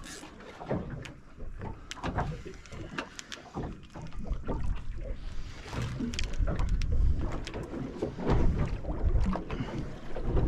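Water slapping against the hull of a small boat, with wind rumbling on the microphone and scattered light knocks.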